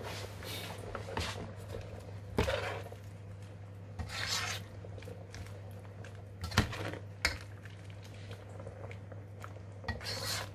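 A metal ladle stirring curry in a large stainless steel pot, scraping along the metal with a few sharp knocks against the pot, over a low steady hum.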